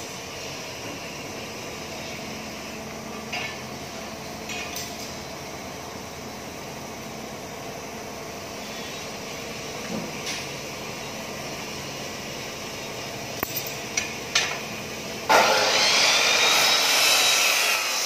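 Steel-fabrication workshop noise: a steady hum with a few scattered metallic knocks and clanks, then, about three seconds before the end, a loud power tool starts grinding metal, with a wavering high whine.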